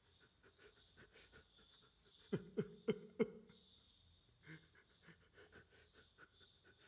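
A man sobbing: four short sobs in quick succession a little over two seconds in, each falling in pitch.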